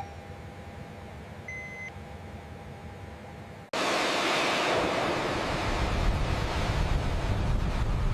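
A low steady hum with a faint held tone and a short beep about one and a half seconds in. Just before the middle it cuts off abruptly and a loud, steady rushing roar with a deep rumble takes over.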